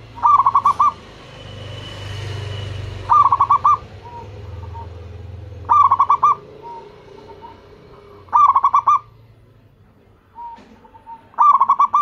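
Zebra dove (perkutut) cooing: five quick stuttering phrases of rapid coo notes, one every two and a half to three seconds, with soft single coos between them.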